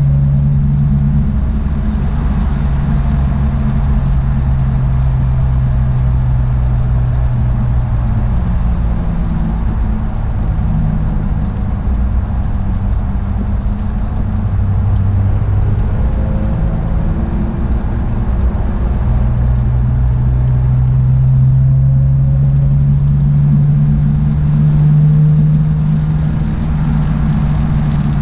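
Porsche 911 GT3 (992) 4.0-litre flat-six running under way on track, a steady low engine note that dips in the middle and rises again in the second half as the revs change.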